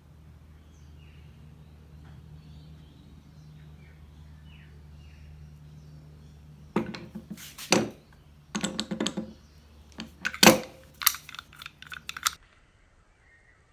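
A quick, irregular run of loud clicks and knocks lasting about five seconds, over a steady low hum; both stop abruptly together.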